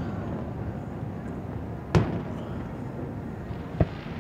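Fireworks display: two aerial shells burst with sharp booms about two seconds apart, the first the louder, over a steady low rumble.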